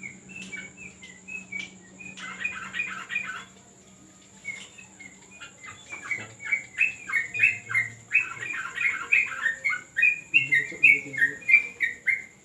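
Yellow-vented bulbul (trucuk) calling in quick runs of short, bubbly notes. There is one burst about two seconds in, a pause, then nearly continuous chatter through the second half.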